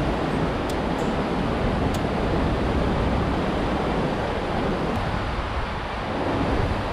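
Steady rushing of a shallow river flowing past the bridge pillars, mixed with the rumble of traffic on the highway bridge overhead. It eases slightly about five seconds in.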